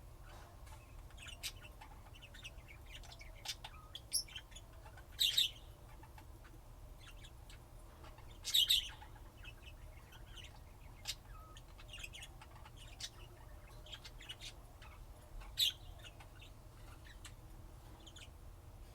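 Pet lovebirds chirping: a scattering of short, high chirps, with a few louder, shriller calls standing out at irregular moments.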